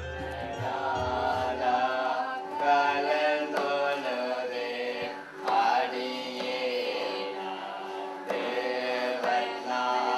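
Children singing a melody.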